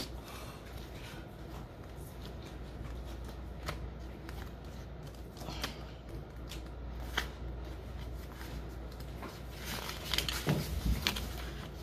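Stiff paper being handled, oracle cards and guidebook pages: scattered soft rustles and flicks, a few louder ones around the middle and near the end, over a faint steady low hum.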